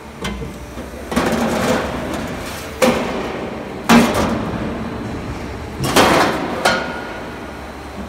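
Sheet-steel clanking: a run of sharp metallic bangs, the loudest about four seconds in, with a stretch of rattling clatter near the start.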